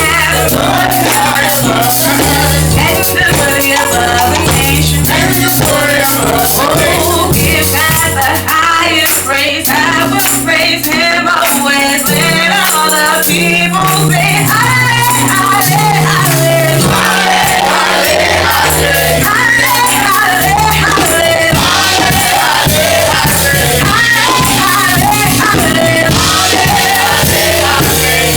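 Live gospel praise music: group singing over a walking bass line and steady shaken percussion.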